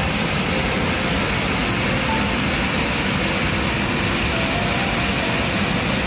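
Waterfall pouring over rocks into a churning pool: a loud, steady rushing of falling water.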